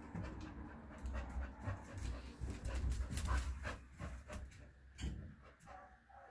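Dog panting, with quick clicks and scuffs of dogs' claws moving on a tile floor.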